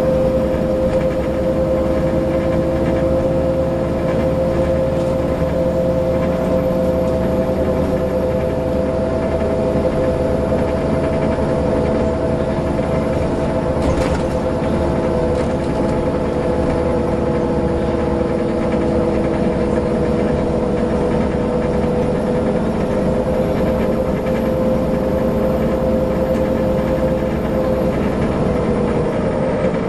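Cabin noise inside a Volvo B7LA Wright Streetcar articulated bus travelling at a steady speed: diesel engine and drivetrain running under a steady mid-pitched whine, with road rumble. There is one brief rattle about halfway through.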